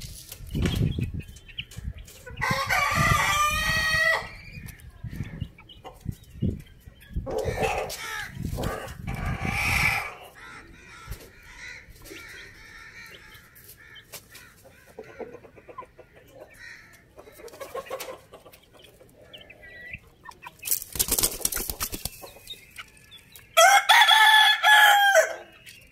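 A rooster crowing twice, one long call about two seconds in and a louder one near the end, with hens clucking and calling in between. A short burst of rustling noise comes shortly before the second crow.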